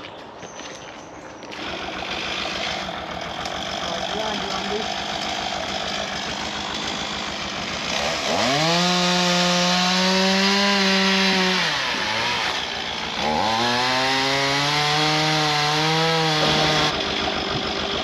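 Two-stroke chainsaw running at idle, then revved to full throttle twice for about three to four seconds each as it cuts into a fallen tree, dropping back to idle between and after the cuts.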